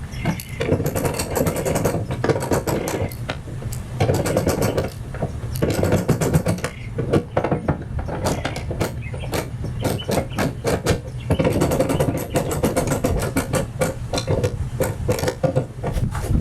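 Ratchet wrench clicking rapidly as bolts on a hood damper mounting bracket are tightened, in runs of a few seconds with short pauses between them.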